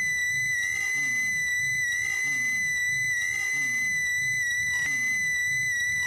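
A long, high-pitched scream held on one piercing steady note. It runs under a low sweeping pulse that repeats about every second and a quarter.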